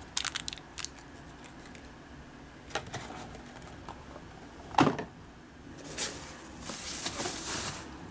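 Small plastic bag crinkling and clicking in the fingers, then a sharp knock on the wooden desk about five seconds in, followed by a rustle of plastic near the end.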